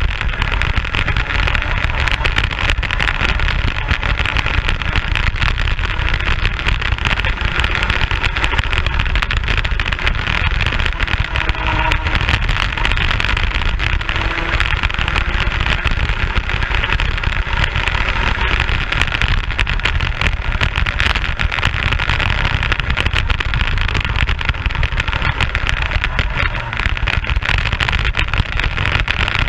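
Racing kart's two-stroke engine running hard on track, heard onboard, with heavy wind rumble on the microphone. The sound stays loud and steady with no let-up.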